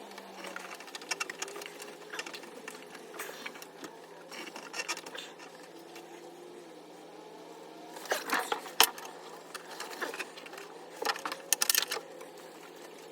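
Clicks, small knocks and rattles of parts and tools being handled during a diesel heater install, over a steady low hum. A burst of quick clicking comes about eight seconds in, and another near the end.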